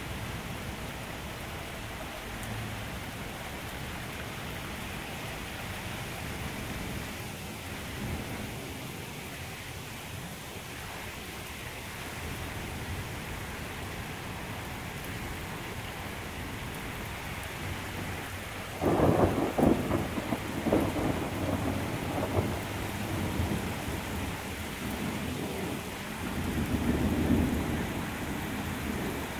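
Steady rain falling during a thunderstorm. About two-thirds of the way in, a loud thunderclap cracks and rumbles on for several seconds, swelling again near the end.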